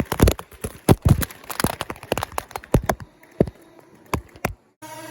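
A rapid, irregular run of sharp knocks and thuds that thins out after about three seconds, then a brief moment of silence near the end.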